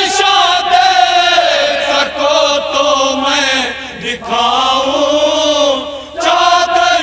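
A group of men's voices chanting a noha, a Shia lament for Muharram mourning, unaccompanied. The lines are drawn out in long held notes, with brief breaks about four and six seconds in.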